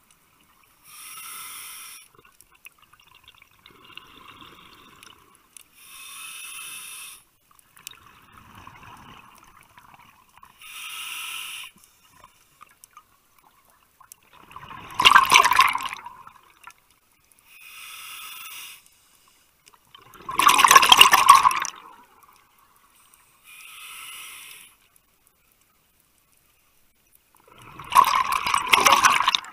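Scuba regulator breathing underwater. Each inhale is a short hiss every few seconds, and each exhale is a loud bubbling rush of air. The three loudest exhales come in the second half.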